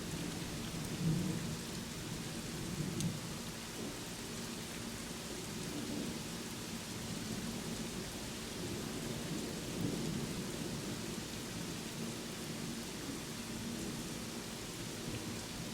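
Steady rain hissing, with a low thunder rumble underneath that swells briefly a few times.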